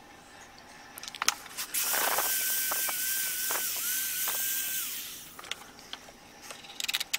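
Electric finger file (a narrow belt sander) starting about two seconds in and running for about three seconds with a steady whine that dips briefly three times as it bites, sanding down the end of the wooden hammer handle for a closer fit in the head. A few light knocks of the hammer head being handled come before and after.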